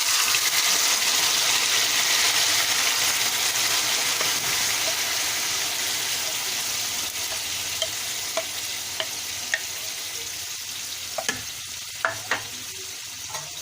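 Yogurt-marinated chicken sizzling loudly in hot oil in a kadhai, just added to the pan, the sizzle slowly dying down as the oil cools. A few sharp clicks of a spoon against the pan come in the second half.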